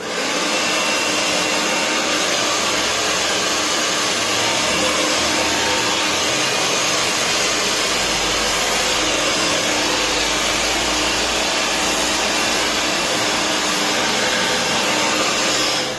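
Hand-held hair dryer blowing hot air through hair during a round-brush blow-dry: a loud, steady rush of air with a faint low hum under it. It comes on suddenly and cuts off near the end.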